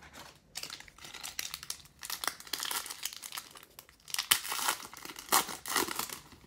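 Foil wrapper of a 2019 Panini Prizm football card pack crinkling and tearing as it is ripped open by hand, in a run of irregular rustles that are loudest about four and five seconds in.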